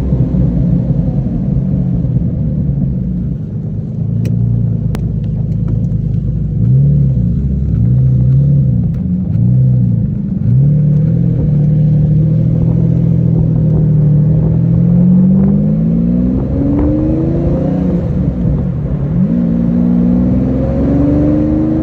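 1997 Lamborghini Diablo's V12 engine under way through the gears: a few quick rises and falls in revs, then a long steady climb, a sudden drop at a gearshift near the end, and another climb. Two sharp clicks about four and five seconds in.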